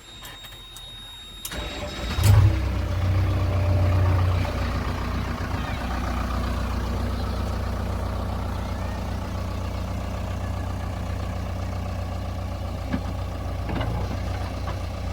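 A large diesel engine starting: it is cranked about two seconds in, catches with a loud burst, revs briefly, then settles into a steady idle.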